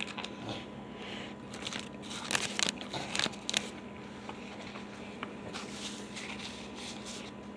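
Someone eating a chicken sandwich: quiet chewing mixed with soft crinkling of paper from the wrapper and a napkin. It comes in short clusters of crackles, about two to three and a half seconds in and again around six seconds.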